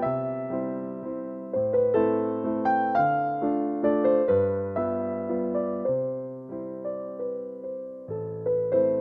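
Background music: a gentle electric piano playing chords and a melody, notes struck and left to fade.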